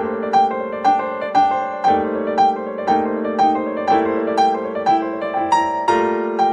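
Calm instrumental background music: a struck note repeating about twice a second over long held low chords.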